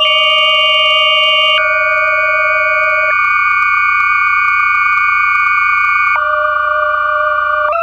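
Electroacoustic tape music from 1983: several steady, pure electronic tones sound together like a held chord. Every couple of seconds one of them drops out or jumps abruptly to a new pitch.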